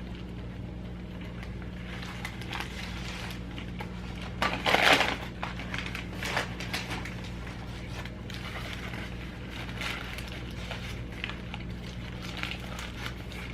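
Crunching and chewing of a crispy fried chicken sandwich, with a louder crunch of the breading about four and a half seconds in, over a steady electrical hum.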